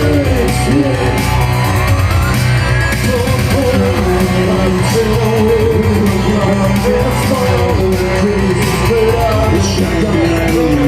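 A live band playing loud, with singing held in long wavering notes over a steady drumbeat and bass.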